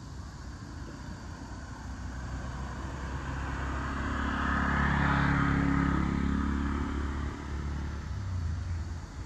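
A motor vehicle passing by: its engine sound swells to a peak about five seconds in and then fades away, over a steady low rumble.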